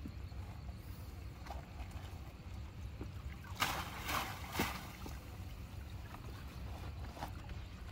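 A fishing net being hauled by hand from the water into a small wooden boat, with water sloshing against the hull over a steady low rumble; a brief flurry of splashing and rustling comes about halfway through as the net comes up.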